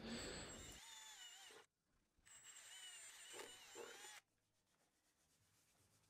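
Cordless drill running faintly in two short runs, its whine wavering up and down in pitch as the trigger is worked while it drills rivet holes in the van door's sheet steel; near silence after.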